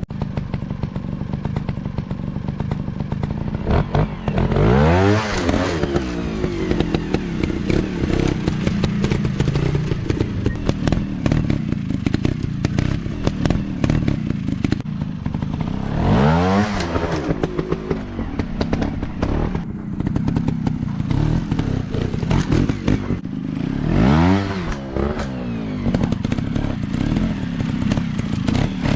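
Trail dirt bike engines running, the engine pitch sweeping up and back down three times, about four, sixteen and twenty-four seconds in, with knocks and clatter throughout.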